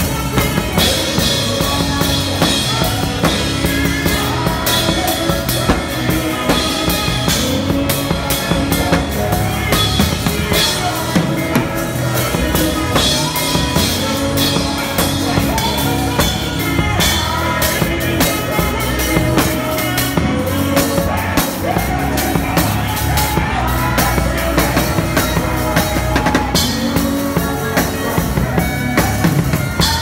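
Drum kit with Meinl cymbals played live in a band: a steady beat of kick, snare and toms with cymbal crashes every few seconds, over other instruments holding sustained notes.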